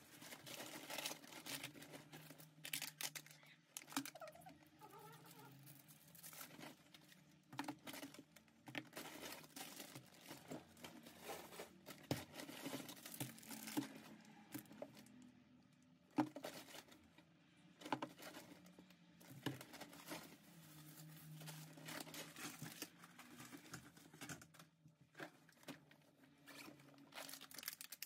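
Faint rustling and crinkling of a shopping bag and plastic food packaging, with scattered light knocks as grocery items are set down on a glass-ceramic hob and counter.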